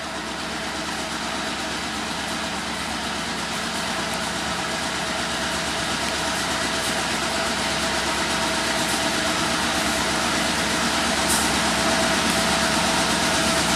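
Housatonic Railroad freight train running: a steady engine drone with a thin steady tone in it, growing gradually louder.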